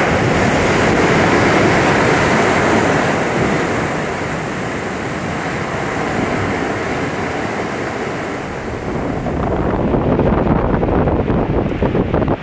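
Fierce storm wind over rough, wind-driven sea water, with the wind buffeting the microphone. A long rushing surge comes in the first few seconds, and from about ten seconds in there are gusty, rumbling buffets.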